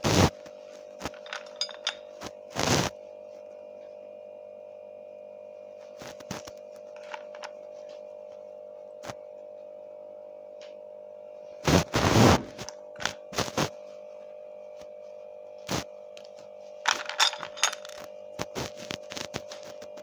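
Small plastic toys being picked up and handled on a table: scattered light clicks and knocks, with a few louder clusters of handling noise, over a steady faint hum.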